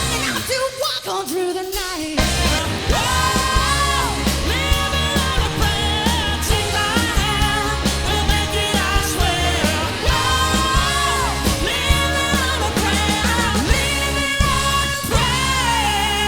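Live pop-rock party band playing a song, with a lead singer over the band. The bass and drums drop out for about two seconds at the start, then the full band comes back in.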